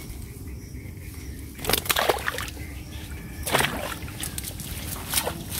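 Pond water splashing and sloshing as a net full of fish is handled in shallow water: a longer burst about two seconds in, another in the middle, and a short one near the end.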